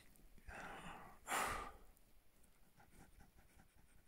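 A climber's laboured breathing at extreme altitude: a soft breath, then a louder breath out about a second and a half in, then near quiet.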